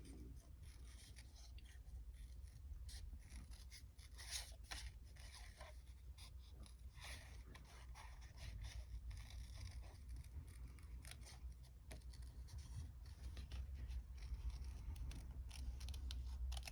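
Small craft scissors snipping paper: a faint run of short, irregular cuts, over a low steady hum.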